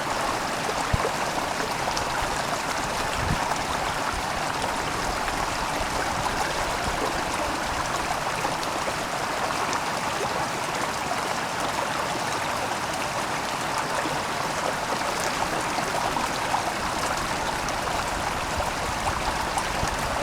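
Running water, a steady even rush, as a clear plastic bottle is filled from an unfiltered water source.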